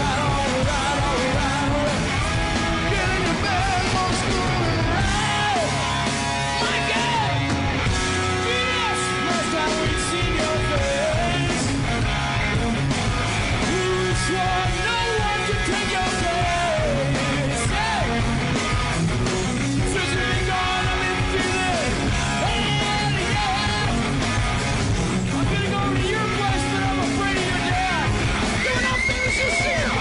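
Live hard-rock band playing at full volume: a male lead singer singing and shouting into a microphone over electric guitar, bass and drums.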